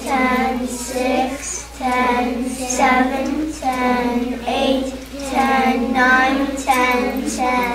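A group of young children and a woman chanting numbers together in a sing-song counting chant, one held syllable roughly every half second to three-quarters of a second, with no break.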